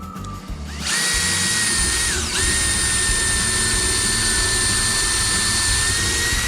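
Electric drill motor running at high speed with a steady whine. It starts about a second in, slows briefly and picks up again a little after two seconds, then stops abruptly.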